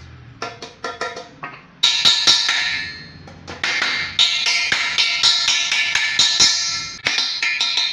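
Light tapping for the first couple of seconds, then rapid hammer blows on a round galvanized sheet-metal disc. Each blow rings metallically, and the run breaks off and starts again a few times.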